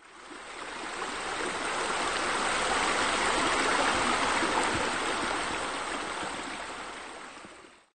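Steady rush of splashing water from the pool's bubbler jets. It swells in from silence, is loudest around the middle and fades away just before the end.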